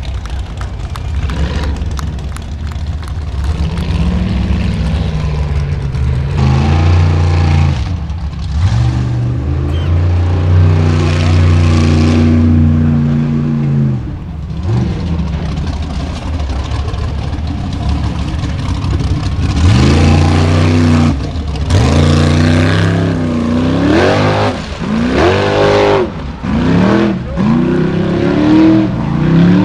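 Formula Offroad hill-climb buggy engines revving hard on a steep dirt climb, held at high revs for a long stretch. Over the second half the throttle is worked in a series of sharp rises and drops in pitch.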